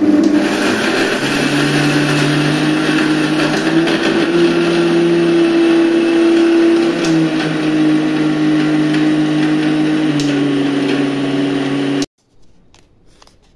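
Electric mixer grinder running steadily, grinding laddu ingredients to powder in its steel jar; its motor hum shifts in pitch a few times, then cuts off suddenly near the end.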